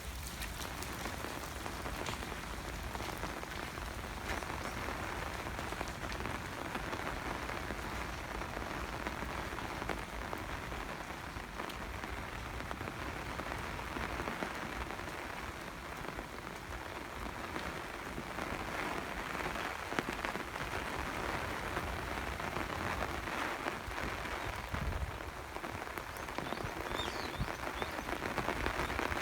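Steady rain falling, a continuous hiss of drops hitting surfaces with many fine individual drop ticks through it.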